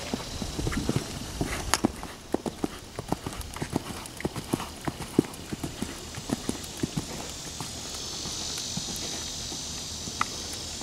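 Hooves of a cantering warmblood-cross horse striking sand arena footing: a run of irregular dull thuds. A steady high hiss comes up in the last few seconds.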